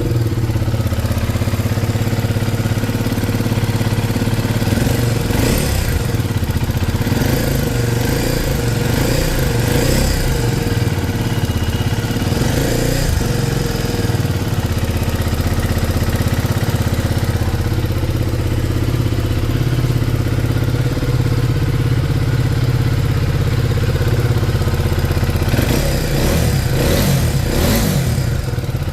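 KTM Duke 250's single-cylinder engine idling, with a few brief rises in revs. The mechanic puts its abnormal noise down to noisy tappet shims, a loose timing chain and worn valves, piston and tappets.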